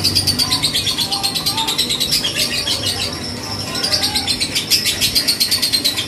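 Young lovebird, about three months old, singing a long rapid chattering trill of shrill high notes, many a second, breaking off briefly about three seconds in and then resuming.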